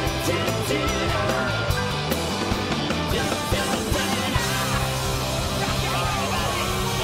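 Live rock band playing: a stepping electric bass line under steady drums and guitar, with some singing over it.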